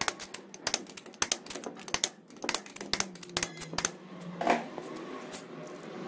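A fast, irregular run of sharp clicks from work on a car wheel's bolts, then a single louder knock about four and a half seconds in.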